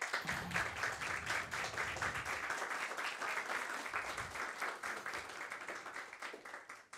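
Audience applauding, dense even clapping that tails off near the end.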